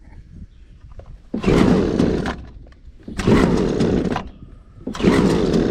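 Husqvarna 326LD string trimmer's two-stroke engine being pull-started three times, each pull of the recoil starter giving about a second of engine noise that dies away without the engine catching: it is hard to start.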